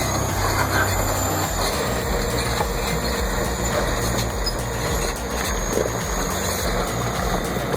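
Heavy diesel engine of a bulldozer running steadily under work, a continuous low rumble.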